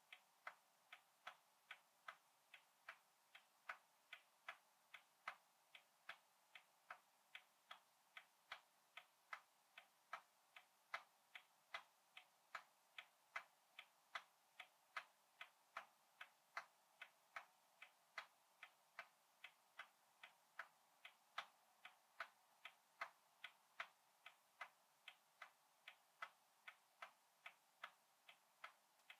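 An old clock, about a hundred years old, ticking steadily and faintly, a little over two ticks a second.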